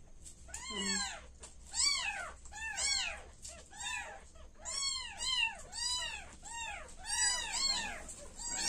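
Week-old kittens mewing: a steady run of high-pitched cries that rise and fall, about one or two a second, some of them overlapping.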